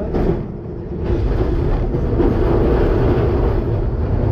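Heritage W-class electric tram running, heard from inside its cab: a steady noise of wheels on the rails and the car body. A few short clicks come right at the start as the wheels pass over the crossing track work.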